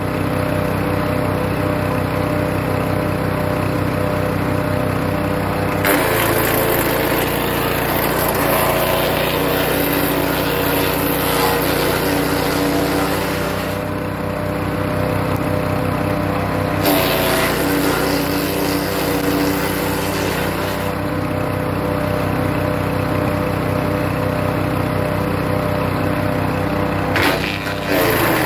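Hecht 6208 wood chipper's engine running steadily, with two long stretches of loud grinding and shredding as birch branches are fed through and chipped: one from about six seconds in and another a little past the middle.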